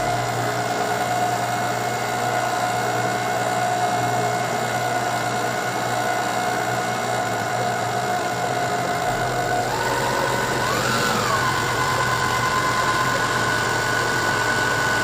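Electric stand mixer running steadily as it beats whipping cream, its motor hum shifting pitch just under ten seconds in.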